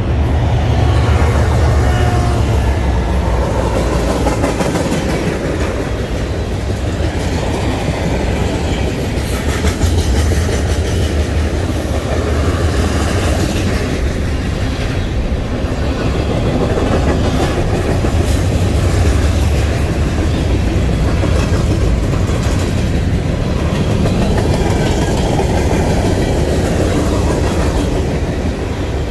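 Freight train passing at close range. A Canadian Pacific GE ES44AC diesel locomotive goes by near the start, then covered hoppers and tank cars roll past with a steady low rumble and rapid clicking of wheels over the rails.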